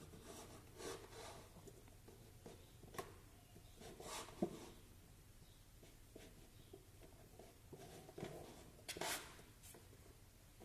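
Faint scraping with a few small, scattered clicks: a tool working the edge of a plastic LED cap into the light holder of a rubber basketball.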